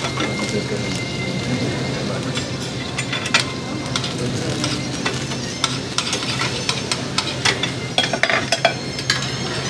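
Filet mignon sizzling in a copper pan on a tableside burner, flambéed with cognac. Clinks of a spoon and fork against the pan come now and then, more often in the second half.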